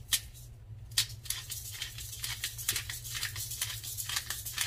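Fingers sprinkling seasoning over raw chicken pieces in a plastic bowl and rubbing it in, a quick irregular run of short, light scratchy rustles.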